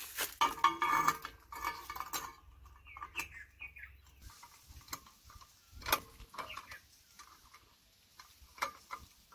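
Irregular small metal clinks and ticks of an Allen key on the set screw of a turbo whistle fitted in a tractor's exhaust pipe, as the whistle is tightened in place. The engine is not running.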